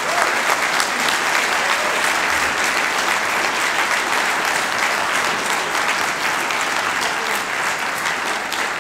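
Audience applauding, the clapping holding steady and easing slightly near the end.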